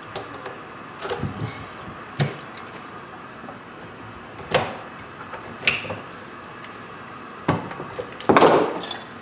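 Scattered clicks, knocks and scrapes of pliers and other metal hand tools working at a boiled cow skull and knocking against a plastic utility sink, about eight separate strikes, the loudest and longest a little before the end.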